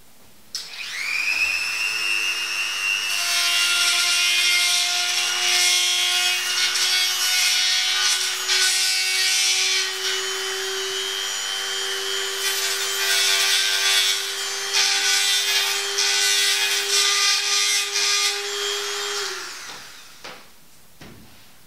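Dremel rotary tool running up to speed with a high steady whine, then grinding into a bicycle frame to widen the cable-hose entry hole, with rough grinding bursts as it bites. It shuts off and winds down near the end.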